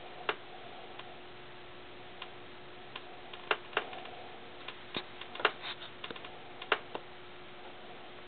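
Irregular sharp clicks and taps from a dog harness's clip and strap knocking about while a cat plays with it. They cluster near the middle, with the loudest about five and a half seconds in, over a faint steady hum.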